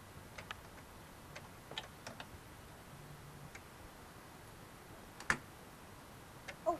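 Faint, scattered light clicks and knocks from a small wooden playhouse door being handled and pushed open, with one sharper knock about five seconds in. A child's brief vocal sound comes right at the end.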